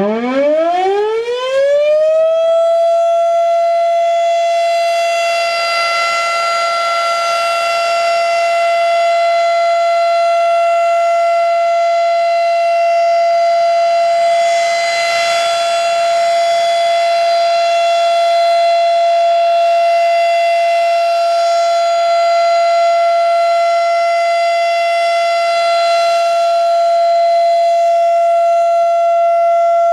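Federal Signal RSH-10A Thunderbeam outdoor warning siren sounding a full alert (steady tone). It winds up with a rising pitch over the first two seconds or so, then holds one steady, loud tone with many overtones.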